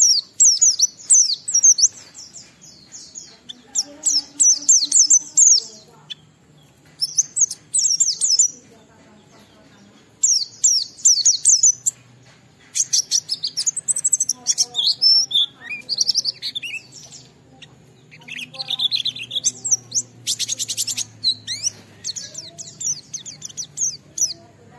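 White-eye (pleci) singing in rapid, high twittering phrases a few seconds long with short pauses between them: the long rolling song that keepers call 'ngalas', used to set other white-eyes singing.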